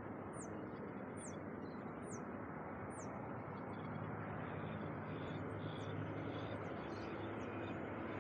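A bird repeats a short, high, falling call four times, about once a second, then calls more faintly, over a steady low rumble with an engine-like hum that grows a little louder about halfway.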